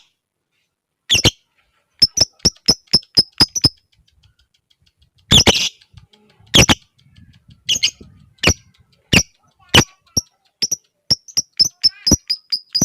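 Lovebird giving sharp, ticking chirps in quick runs of about four a second, the 'ngetik' call, broken by a few louder, harsher squawks.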